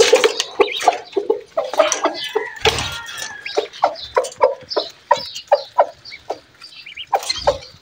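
Chickens clucking: a long run of short, repeated clucks, coming quickest, about four a second, in the middle, with a few thin high chirps over them.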